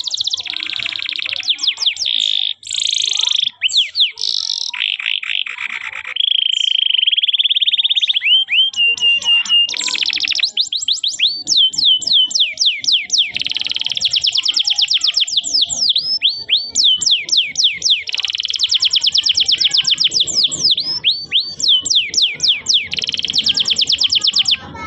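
Domestic canary singing a long, fast song: rapid trills, a steady rolling note held for about two seconds near the quarter mark, and many quick down-sweeping whistles, all high-pitched.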